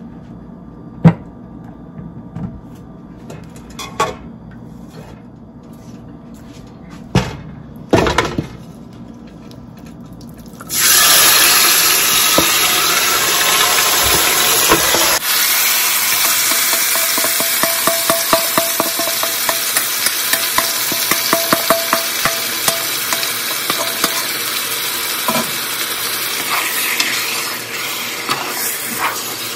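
A few sharp knocks of pot and utensils, then, about a third of the way in, yogurt-marinated chicken hits hot oil in a stockpot and starts sizzling loudly. The sizzle carries on as a wooden spoon stirs and clatters against the pot.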